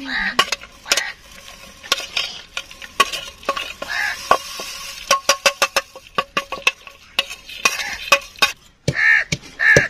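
Steel knife tapping and scraping spice seeds across a stainless steel plate into a wooden mortar: a string of sharp metallic clicks, each with a short ring, coming several a second around the middle.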